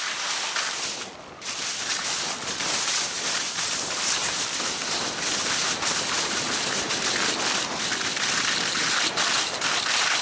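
Steady rushing hiss of skiing at speed: skis running over snow with wind on the microphone, dipping briefly about a second in.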